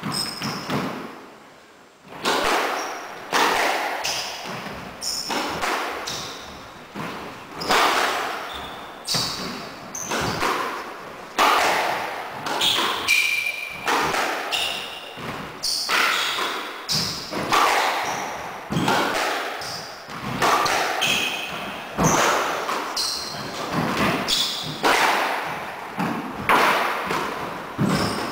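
Squash ball being struck by rackets and smacking off the court walls and floor in a rally, sharp echoing hits about every second after a brief lull near the start. Short high squeaks of shoes on the wooden floor come between the hits.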